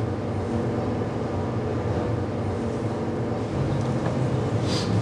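Steady low rumble with a faint hum, with a brief soft hiss near the end.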